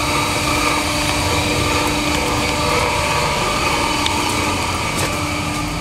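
Factory machinery running steadily: a constant mechanical hum with a steady tone held through it.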